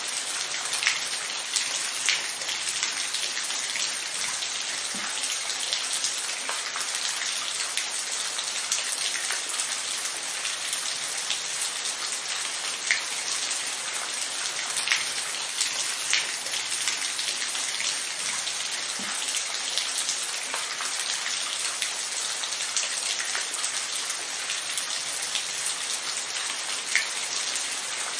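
Steady rain: an even hiss of falling drops, with a few sharper single drop hits standing out now and then.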